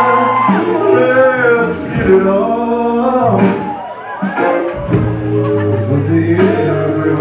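Male lead vocalist singing live into a microphone, his pitch bending and gliding between notes, over a rock band's accompaniment with sustained low bass notes.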